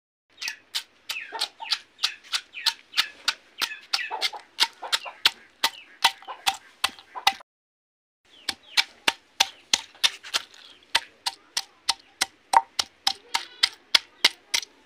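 Snail shells being crushed on a flat grinding stone with a stone pestle: a steady run of sharp cracks, about three a second, that stops for about a second halfway through and then carries on.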